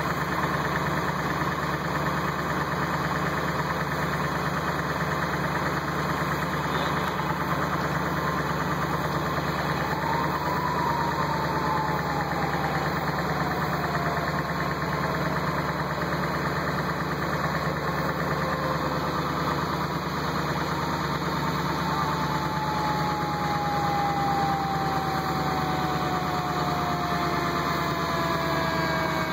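Vehicle engine idling steadily. Faint tones slide slowly down in pitch, briefly about ten seconds in and longer through the second half.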